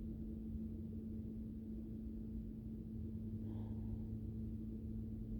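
Steady low hum with one constant tone running under a low rumble: background room noise between sentences.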